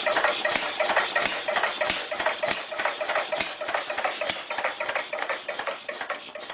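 Rapid, irregular mechanical clicking clatter, thin with little low end, slowly fading toward the end.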